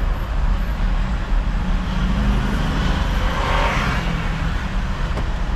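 City bus driving along, heard from the driver's seat: a steady low engine and road rumble, with a louder rush of noise that swells and fades about midway.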